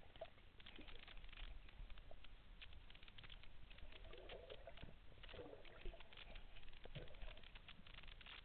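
Faint underwater reef ambience: a steady crackle of many small clicks, typical of snapping shrimp, with a few low muffled sounds about four to seven seconds in.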